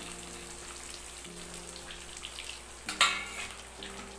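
Chopped shallots and onion sizzling in hot oil in a kadai, just tipped in on top of tempering mustard seeds, cumin and fenugreek. A single sharp clack comes about three seconds in.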